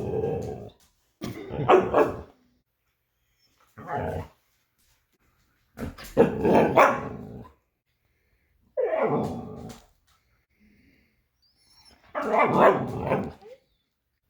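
Huskies 'talking': about six drawn-out, growly vocal bouts, each up to a second and a half long, separated by short silent gaps.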